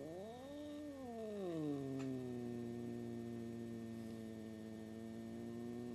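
Cat giving one long, low, drawn-out yowl that rises and falls in pitch over the first two seconds, then settles into a steady low growl. It is an unhappy, warning sound, the cat's answer to a new cat in the house.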